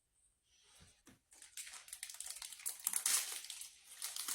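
Plastic snack wrapper crinkling and rustling as it is handled and opened, starting after about a second of near quiet.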